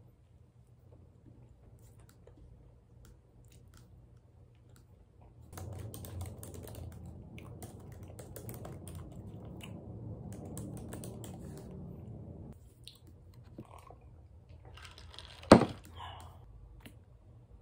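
Typing on a laptop keyboard: light scattered key clicks at first, then a denser, louder run of typing from about five seconds in to about twelve seconds in. Near the end, a single sharp knock, the loudest sound.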